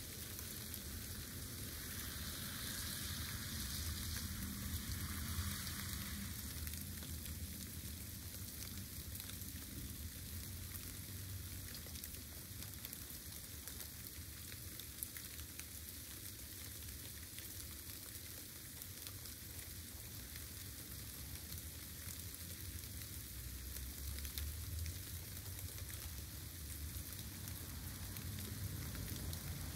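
Steady rain falling: an even hiss with fine scattered drop ticks, over a low rumble.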